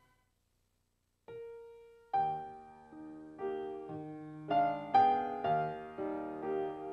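Silence for about a second, then keyboard title music begins: a single held note, then a slow tune of struck notes over chords.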